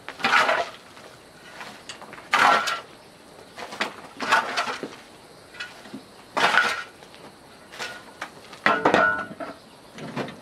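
Repeated short scraping strokes of a metal tool, about one every one to two seconds, several with a faint metallic ring.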